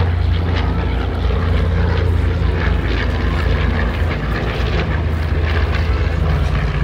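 Propeller airplane's piston engine running steadily: a deep, even drone.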